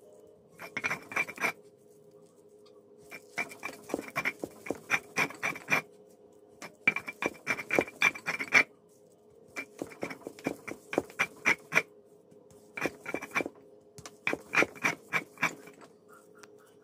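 A stone hand roller (mano) worked back and forth over a stone metate, grinding boiled plantains into dough. It comes in six or so spells of quick knocking, scraping strokes, each a second or two long, with short pauses between them.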